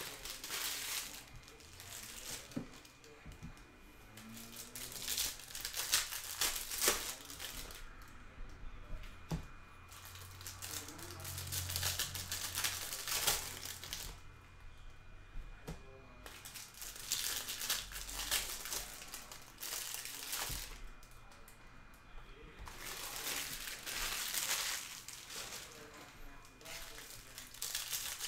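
Clear plastic wrapping of trading-card hanger boxes crinkling as it is pulled open and handled, in bursts a few seconds apart.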